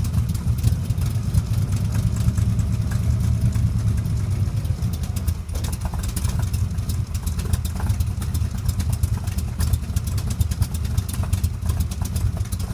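Chevrolet V8 engine in a Dax Cobra running steadily at idle, a loud low exhaust rumble with rapid firing pulses and no revving.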